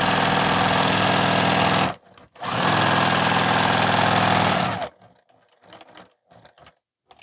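Domestic sewing machine with a walking foot stitching at a fast, steady speed. It stops briefly about two seconds in, runs again for about two and a half seconds, then stops, leaving only a few faint clicks and rustles.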